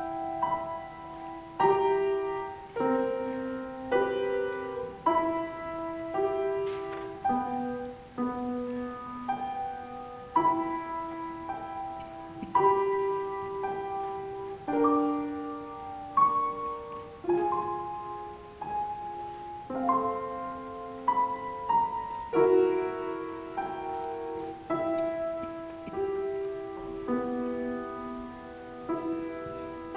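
Grand piano played solo at an unhurried pace: chords and melody notes struck about once a second, each left to ring and fade, mostly in the middle register.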